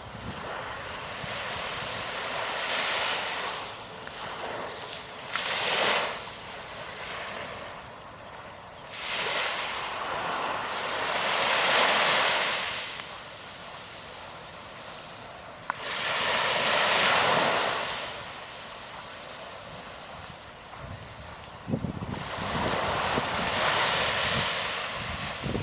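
Sea waves breaking and washing in repeated surges every few seconds, with the biggest ones about ten and seventeen seconds in. Near the end, wind buffets the microphone with low rumbles.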